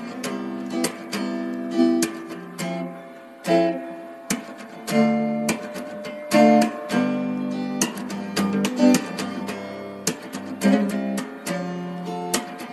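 Background music on acoustic guitar: a quick run of plucked notes and strummed chords, each ringing out briefly before the next.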